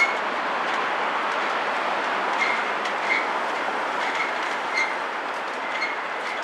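Motorised rolling steel shutters of a station entrance rising, a steady rattling rumble with short high squeaks recurring every half second to a second.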